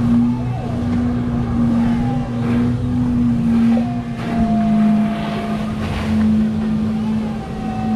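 A steady engine drone whose pitch drops slightly about four seconds in.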